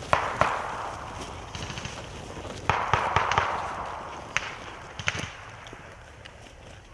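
Rifle shots fired singly and in a quick cluster, each crack followed by a rolling echo: a pair near the start, a burst of several about three seconds in, then two more single shots.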